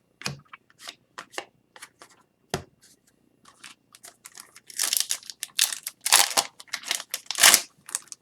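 Scattered light clicks of card handling, then from about halfway the foil wrapper of an Upper Deck hockey card pack crinkling and tearing as it is shredded open.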